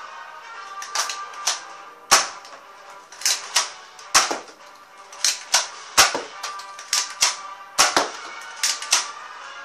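Toy blaster firing over and over: about fifteen sharp shots at uneven intervals, each with a short ringing tail, over background music.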